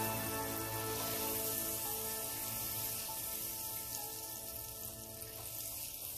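Butter sizzling and foaming as it melts in a preheated pan, a steady hiss throughout.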